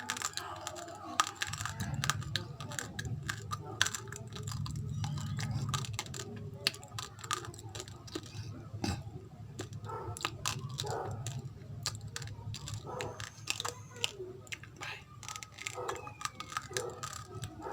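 Close-up chewing of raw rice grains with rice flour: dense, irregular crunching and crackling from the mouth, with wet mouth sounds between the bites.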